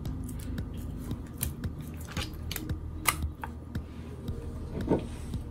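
Raw bluegill and catfish pieces being turned by hand in a bowl while seasoning them with salt and pepper: irregular wet squishes and slaps with light clicks against the bowl, over a low steady hum.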